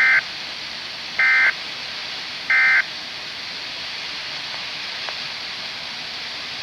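Three short bursts of SAME digital data tones, a buzzy two-tone warble, from a weather radio receiving the Environment Canada Weatheradio broadcast. Each burst lasts about a quarter second and they come about a second and a quarter apart, the short pattern of the end-of-message code. A steady radio hiss runs between them.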